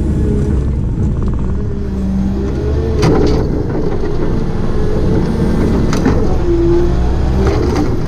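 Diesel engine of a heavy excavating machine running under load, its pitch shifting as it works, with three sharp knocks or cracks spread through.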